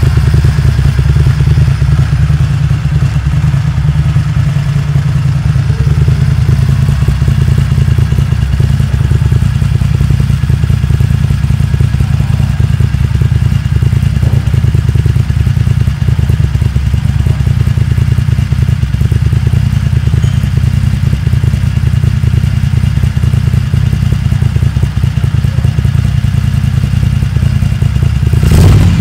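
Moto Guzzi Le Mans racing motorcycle's air-cooled transverse V-twin running steadily through open racing silencers, a deep, even pulsing. Near the end the throttle is opened and it gets louder and harsher.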